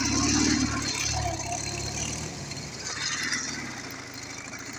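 Motorcycle engine running, loud for the first two seconds or so, then fading.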